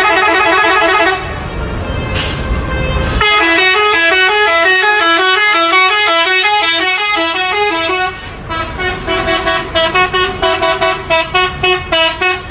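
Tour bus basuri 'telolet' multi-tone horn playing a melody of quick stepping notes. It breaks off about a second in, resumes with a longer run, and ends in rapid short toots, about three a second, over the last four seconds.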